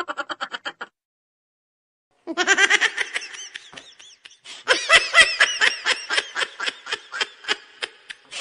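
Laughter sound-effect clips: a rapid, pulsing laugh cuts off under a second in, then after a gap of about a second and a half, more fast, high-pitched laughing starts and carries on to the end, getting louder about halfway through.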